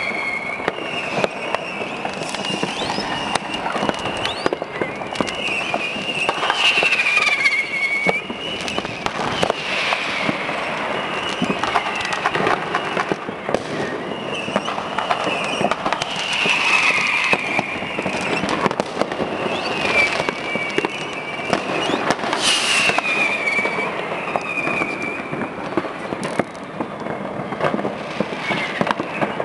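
A dense, nonstop barrage of fireworks: firecrackers banging and crackling continuously, with whistling fireworks shrieking and falling in pitch every few seconds.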